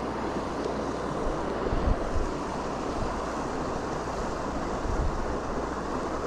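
Steady rushing of flowing river water, with a few brief low bumps of wind on the microphone.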